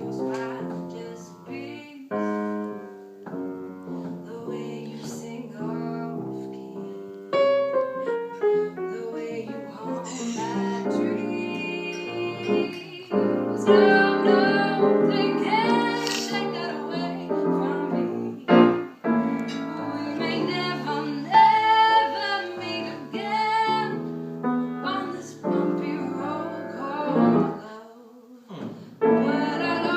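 A woman singing with piano accompaniment.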